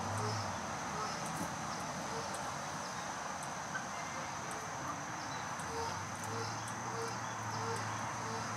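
Steady outdoor background noise, with faint short pulses repeating about twice a second from about halfway through and a low steady hum under them.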